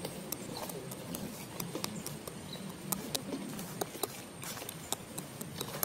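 Scattered sharp clicks and crackles of twigs and leaves as macaques move and feed in a tree.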